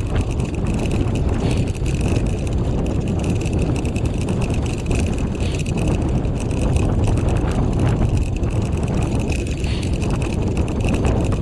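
Four-dog dryland rig rolling along a dirt trail: a steady rumble of the cart's wheels over the ground, with a constant high whine and wind on the microphone.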